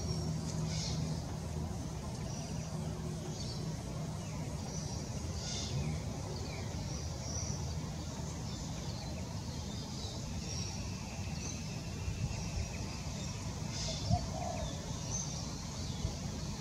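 Outdoor ambience: a steady low rumble under short, high bird chirps scattered throughout, with a brief click about fourteen seconds in.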